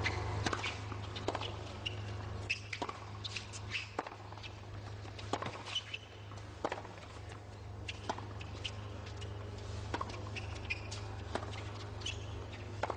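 Tennis rally on a hard court: rackets striking the ball and the ball bouncing, a sharp pop every second or so, with tennis shoes squeaking in short chirps as the players move between shots.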